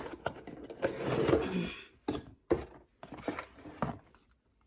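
Hands handling product packaging: a sharp click, then a rustling scrape about a second in, followed by several light clicks and taps.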